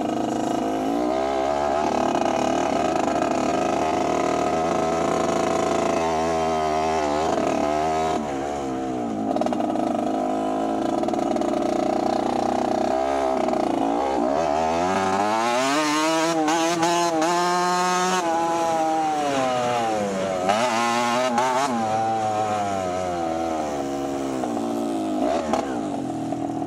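Dirt bike engine running as the bike is ridden, its pitch climbing and falling several times with the throttle, highest in the second half.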